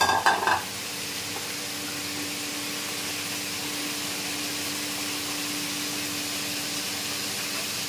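Steady hiss of a pot cooking on a lit gas stove burner, with a short clatter of kitchen utensils at the start and a faint steady hum for a few seconds in the middle.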